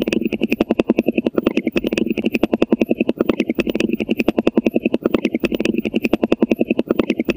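Shoebill clattering its bill: a rapid, even, machine-gun-like rattle of about ten claps a second, swelling about every two seconds.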